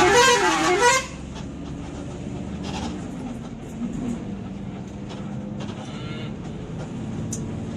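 A bus's telolet horn plays a loud, warbling tune for about a second. After it the bus engine runs with a steady low hum amid traffic noise.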